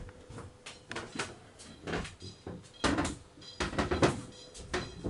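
Irregular wooden knocks and clicks, about eight, from moving about inside a yacht's cabin, with a faint steady hum beneath.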